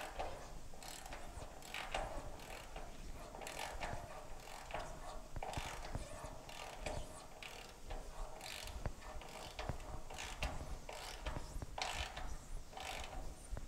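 Hand ratchet wrench clicking in short irregular runs as bolts are tightened into a transmission mount on the car chassis.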